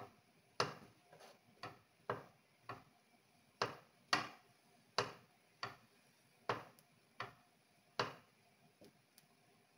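A metal fork clicking against a nonstick frying pan as bread rolls are turned in it: about a dozen sharp, irregular clicks that stop near the end.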